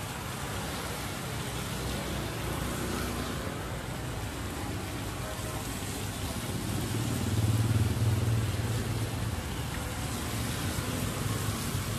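City traffic on a wet road: motorbikes and cars passing, with tyres hissing on the wet asphalt and a low engine hum. One vehicle passes close and louder about seven seconds in.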